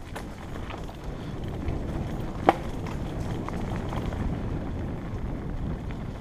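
Mountain bike ridden fast over a dirt woodland trail: a steady low rumble of tyres on the ground and rushing air, with small rattling clicks from the bike and one sharp, loud knock about two and a half seconds in.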